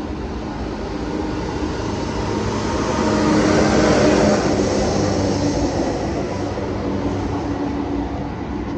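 Rail tamper (track maintenance machine) running fast along the track and passing directly beneath, its engine hum and wheel noise building to a peak about four seconds in, then fading.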